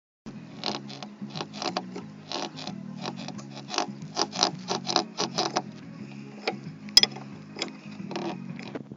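Anvis front strut top mount on a Lada creaking in a rapid, irregular run of short squeaks, with a sharp click about seven seconds in; the creak is the mount's fault the uploader is showing.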